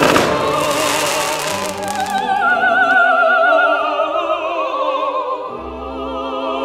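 A firework bursts with a bang right at the start, its crackle dying away over the next two seconds. After that, operatic singing with a wide vibrato carries on alone as background music.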